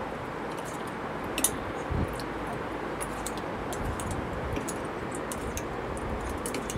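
Steel spoon stirring thick semolina-and-yogurt batter in a steel bowl: soft scraping and a few light metal clinks over a steady background hiss.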